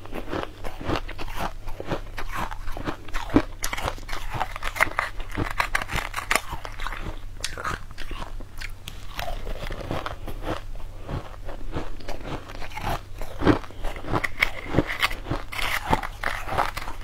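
Close-up crunching and chewing of mouthfuls of green crushed ice, a rapid, irregular run of sharp crunches.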